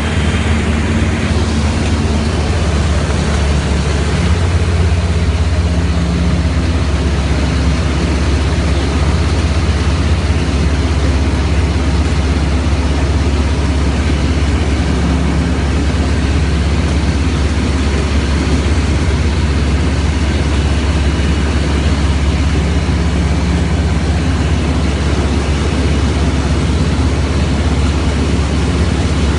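A vehicle engine running steadily: a continuous low drone with a faint hiss of noise over it, unchanged throughout.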